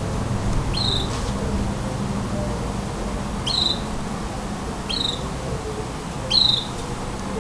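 Brown-backed solitaire (Mexican jilguero) giving four short calls about a second and a half apart. Each call is a quick upward flick into a high note that slides slightly down. A steady low hum runs underneath.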